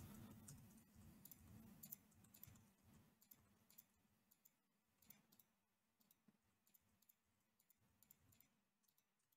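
Near silence, with faint scattered clicks of computer keys and a mouse.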